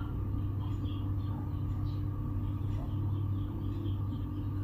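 Steady low mains hum from a switched-on amplifier and its bare speakers, with no signal playing. Faint soft ticks of typing on a phone's on-screen keyboard come through it.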